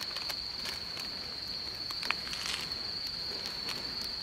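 Steady high trill of a cricket, with scattered light clicks and crackles as wooden skewers of sauced octopus are moved on a foil-lined charcoal grill.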